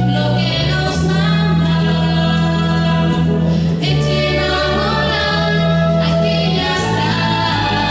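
Live Andean folk band performing a song: several voices singing a melody together over steady, held electric bass guitar notes.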